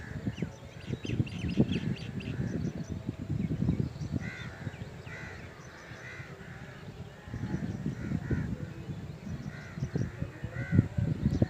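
Gusty wind buffeting the microphone, with birds giving short series of harsh calls about four seconds in and again near the end, and small birds chirping faintly.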